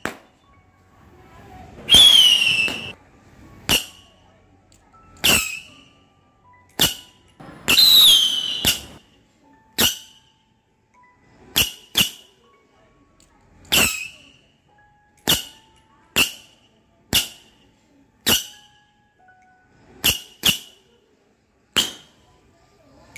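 Homemade matchstick-powder sky shots going off one after another along a chain fuse: about seventeen sharp whooshes at uneven gaps, each ending in a short falling whistle, two of them louder than the rest.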